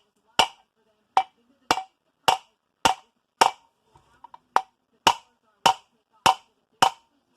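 A hammer strikes the crank puller on a KX250 crankshaft in steady, evenly spaced blows, about two a second with a short pause midway, each a sharp metallic knock with a brief ring. The blows drive the crankshaft out of the left crankcase half.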